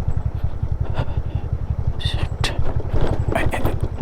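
Motor scooter riding slowly over a rough dirt track: the engine runs with a steady low pulse, and sharp knocks and rattles from the scooter jolting over the ruts come several times, mostly in the second half.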